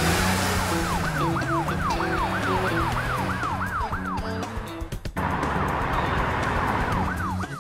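Ambulance siren in a fast yelp, its pitch sweeping up and down about two to three times a second, over background music. It cuts out briefly about five seconds in and starts again near the end.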